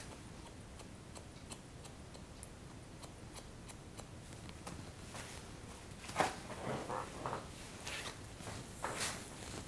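Hair-cutting shears snipping the ends of long hair to blend the layers: a string of faint, crisp ticks. About six seconds in and again near the end come louder rustles of the hair being combed out and handled.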